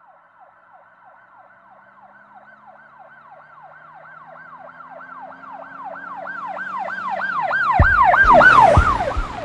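A siren in a fast wailing (yelp) pattern, each wail quickly dropping in pitch, about three or four a second, growing steadily louder as it draws near. A few low thumps come in near the end as it peaks and breaks off.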